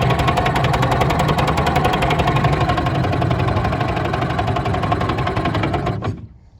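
1947 Mercury KE3 Comet 3.6 hp single-cylinder outboard motor running steadily with a fast, even firing rhythm, then shut off about six seconds in, stopping abruptly. It is running well for its age.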